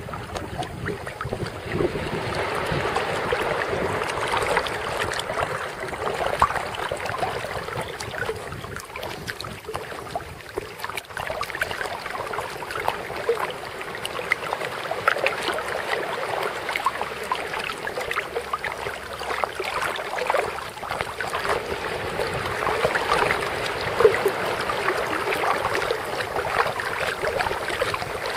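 Sea water lapping and splashing close up at the water's surface: an uneven run of many small splashes from swimming in the sea.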